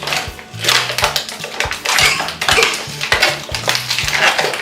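Small hard plastic pieces rattling and clattering, over and over, as a plastic Squinkies toy pack is shaken and worked to get a tiny figure out.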